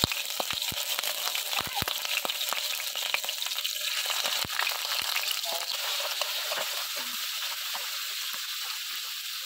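Chicken livers sizzling in hot oil in a frying pan: a steady hiss with frequent sharp clicks over the first half as metal tongs move the pieces, settling to a smoother sizzle after about six seconds.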